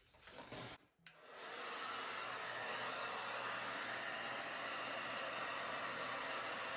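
Hair dryer switched on about a second in, rising quickly to a steady rushing blow that holds, used to blow poured acrylic paint out across a canvas into a bloom. A few small handling knocks come just before it starts.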